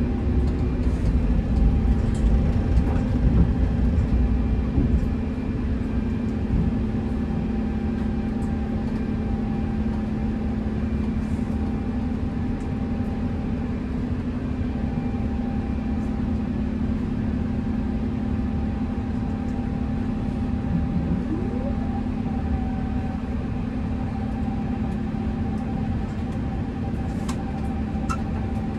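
Airbus A350 cabin noise in the climb after takeoff: the steady rush of airflow and the Rolls-Royce Trent XWB engines, with a constant low hum and a fainter steady higher tone. The low rumble is a little heavier for the first few seconds, then settles.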